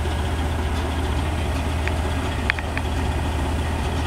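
A big-rig semi truck's diesel engine idling steadily with a low, even rumble, with a few light metallic clicks about halfway through.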